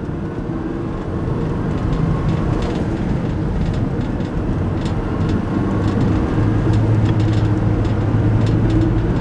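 In-cabin sound of a Subaru WRX's turbocharged flat-four engine pulling under light throttle over tyre and road rumble. The drone grows gradually louder, with a deeper engine note coming in about six seconds in as the car gathers speed.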